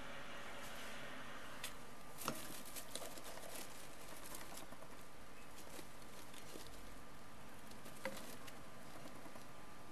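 Pet rats scrabbling and rustling through shredded paper bedding, with soft scattered scratches and ticks and a couple of sharper clicks, one about two seconds in and one near eight seconds.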